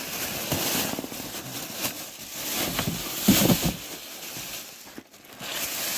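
Plastic wrapping and cardboard rustling and scraping in irregular bursts as a new portable petrol generator is lifted out of its box.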